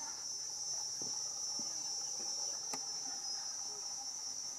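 Insect chorus, a steady high-pitched drone that does not let up, with one sharp click about halfway through.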